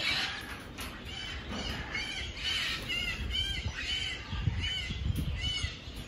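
A bird chirping over and over, short rising-and-falling calls about twice a second, with some low rumbling noise underneath.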